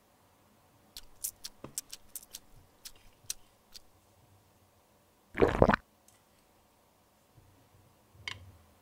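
A run of small sharp clicks, then a brief wet splash about halfway through as a pink toy drink is poured into a miniature glass, and near the end a light tap as the small toy glass is set down on the table.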